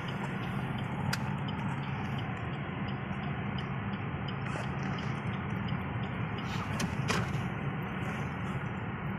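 Steady engine and tyre hum of a slow-moving car, heard from inside the cabin, with a few brief clicks about a second in and again around seven seconds.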